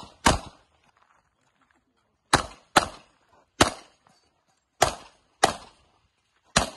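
Pistol shots fired in competition shooting: seven sharp, loud shots in an uneven rhythm, several in quick pairs a half second apart, with pauses of about a second between them.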